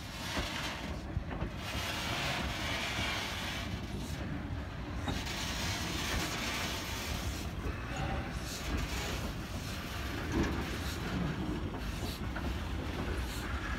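C17-class 4-8-0 steam locomotive and its water tank wagon moving past at shunting speed. Steel wheels keep up a steady rumble and click over the rail joints, with a few brief clanks, the loudest about ten seconds in.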